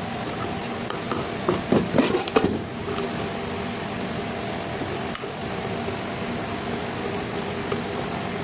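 A quick run of sharp plastic clicks and knocks about two seconds in as the indicator lamp is pushed into its seat in the electric kettle's plastic base, over a steady background hiss.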